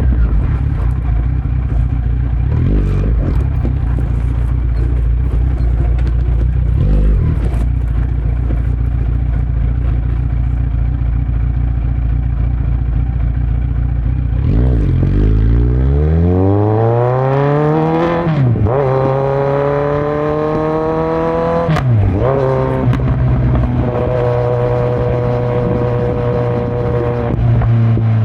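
2018 Kawasaki Z900's inline-four engine through a Yoshimura muffler and Delkevic headers with no dB killer, heard from on the bike. It runs steadily at low revs for about half the time, then accelerates with a rising pitch. Two upshifts each drop the pitch suddenly, and it then settles at a steady higher pitch.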